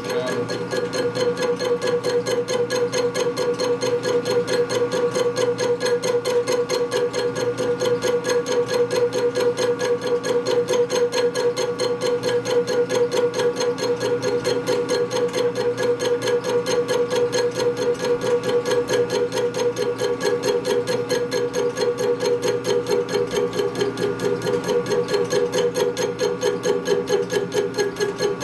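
Machine tool cutting an aluminum brake caliper bracket: a steady running tone with a fast, even ticking that does not change.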